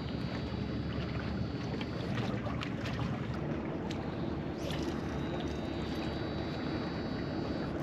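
Wind on the microphone and sea washing against rocks, a steady rushing noise with a few light clicks. Twice a faint high whine sounds as line pays out during a cast: the electronic DC brake of the Shimano Exsence DC baitcasting reel.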